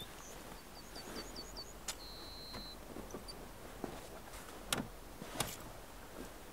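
Quiet sounds of someone moving about at an open car door: a few sharp clicks and knocks. Under them, a quick run of short high chirps and one brief held high whistle.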